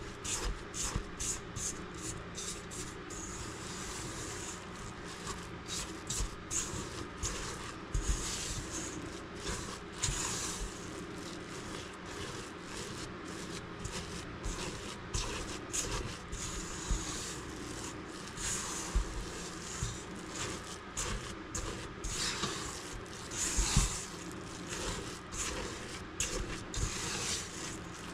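Silicone spatula stirring and scraping thick oatmeal cookie dough around a stainless steel mixing bowl, in many short, irregular strokes.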